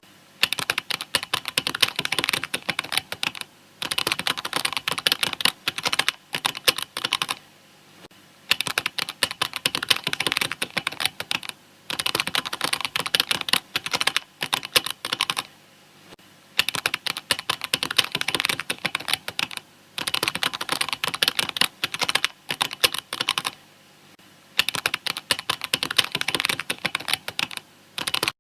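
Computer keyboard typing: rapid key clicks in runs of about three to four seconds, broken by brief pauses, about seven runs in all.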